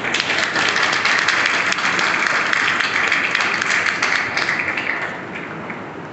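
Audience applauding. The clapping starts suddenly, holds steady for about four seconds, then dies away.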